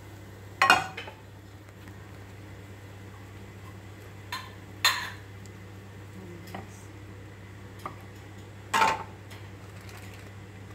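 Frying pan and utensil clattering against a plate and the counter as the scrambled eggs are served. There are three sharp clatters, about a second in, around five seconds in and near the end, with a few lighter clicks between.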